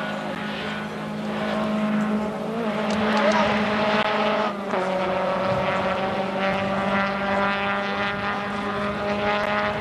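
Rally car engine driving hard at high, sustained revs, heard from a distance, with a brief lift or gear change about halfway through.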